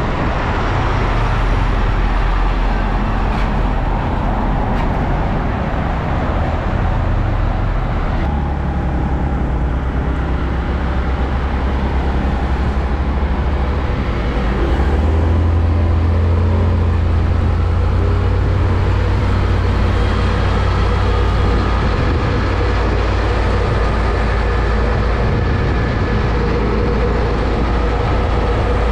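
Close road traffic: heavy diesel truck engines running with tyre noise as vehicles pass, a steady low engine drone throughout. The sound changes abruptly about 8 seconds in and again about 15 seconds in.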